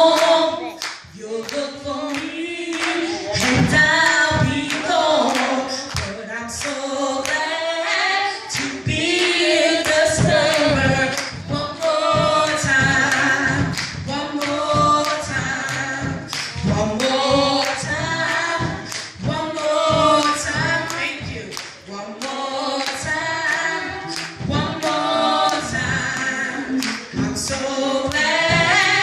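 A woman singing a gospel song into a microphone, amplified over a church sound system, with steady hand claps keeping time.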